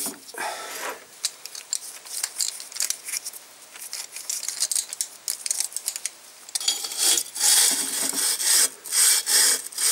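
Hand scraping and rubbing against the rusty, oiled bore of a Panhard M5-type cylinder liner, with no drill running. About two-thirds of the way through it becomes louder and more rhythmic.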